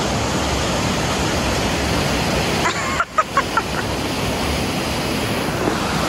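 Steady rushing of a river's white water through a rocky gorge. About halfway through, the rushing dips for a moment and a few short high-pitched sounds come through.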